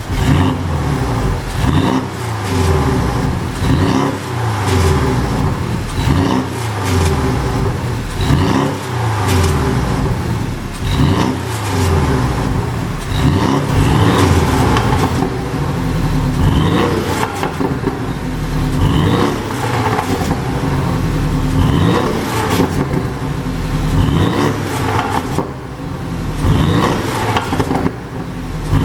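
Porsche 718 Boxster GTS's turbocharged flat-four engine revved over and over in short blips, with crackles and pops on each fall-off: the exhaust 'pop' tune at work.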